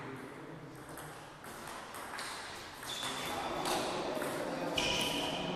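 Table tennis rally: the celluloid ball clicking sharply off rubber-faced bats and the table, a hit roughly every half second to a second, with a short ringing ping on the louder strikes and the hall's echo after each.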